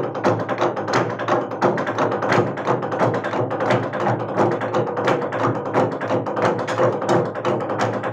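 A Naga log drum, a hollowed tree trunk, beaten by a row of men with heavy upright wooden beaters: a dense, unbroken clatter of many overlapping wooden strikes each second.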